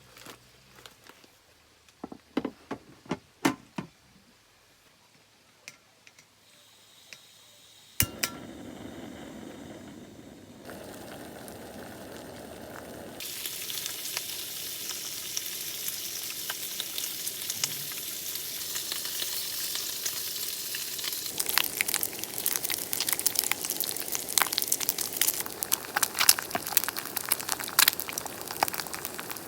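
Food sizzling and frying in a hot pan, heard in several short clips that cut one into the next. The sizzle is loudest in the last part, with many sharp spits and crackles. There are a few clicks and knocks in the first few seconds.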